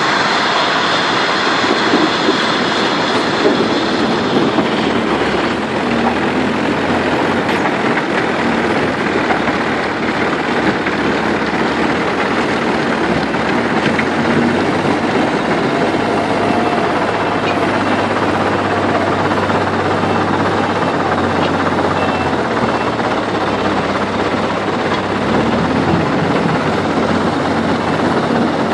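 Heavy construction machinery running steadily at a stone crusher: a dense, unbroken mechanical rumble and rattle with a low engine hum.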